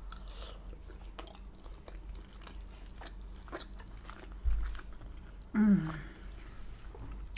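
Mouth-close chewing of butter chicken curry and rice, with many small wet clicks. There is a low bump about four and a half seconds in and a brief hummed voice sound a little after.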